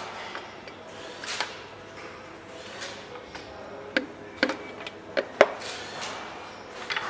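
Sharp metallic clicks and knocks as a piston is pushed through a ring compressor into a cylinder bore of a Bentley V8 engine block. The knocks come in a quick cluster a little past the middle.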